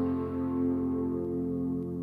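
Background music: a soft, held ambient chord fading slowly.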